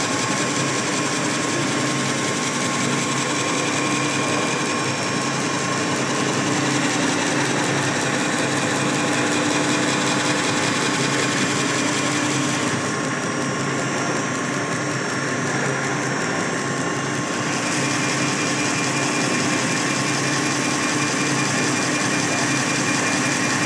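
Crankshaft belt-polishing machine running, its abrasive belt rubbing on the turning crankshaft journal: a steady mechanical whir and hiss with a few steady hum tones. The high hiss drops away for a few seconds past the middle, then comes back.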